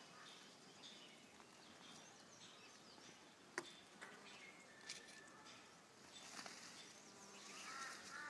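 Faint outdoor quiet with distant small birds chirping, a single sharp tap about three and a half seconds in, and a crow starting to caw near the end.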